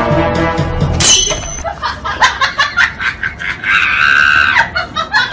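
Music that breaks off about a second in, then shrill screaming with sharp clicks, including one drawn-out high cry near the end.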